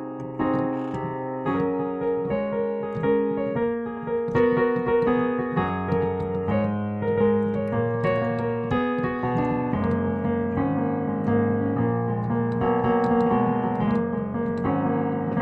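Piano playing an instrumental interlude of sustained chords under a melody line, with no singing.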